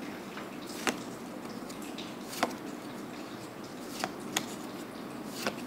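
Magic: The Gathering cards being handled one at a time in the hand, each card flicked from back to front with a short, sharp snap; five snaps at uneven intervals over a steady background hiss.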